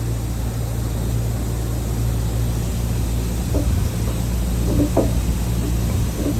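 A steady low machine hum, with a few light knocks in the second half.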